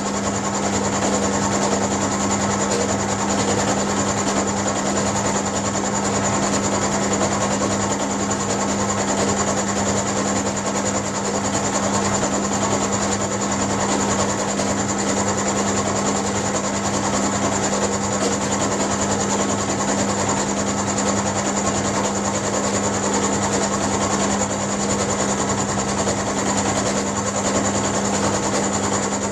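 Mill-drill running steadily with its end mill cutting smoothly through a steel bar as the table is hand-fed: a constant motor hum under the cutting noise.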